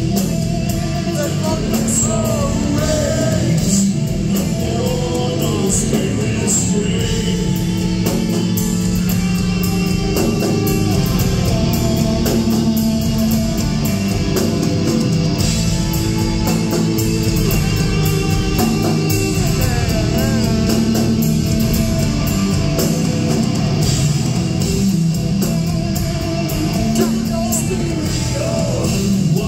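Heavy metal band playing live: electric guitars, drum kit and a singer's vocals, loud and continuous.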